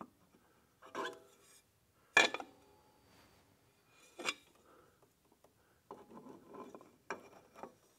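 Metal clutch parts clinking and scraping as the sheave plate of a golf cart's secondary clutch is worked onto its shaft: a few sharp clanks, the loudest about two seconds in with a short ring, then rubbing and scraping near the end.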